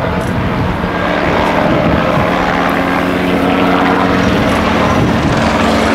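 Citroën DS3 WRC rally car's turbocharged four-cylinder engine running hard as the car charges down a gravel stage, heard at a distance with a steady drone underneath.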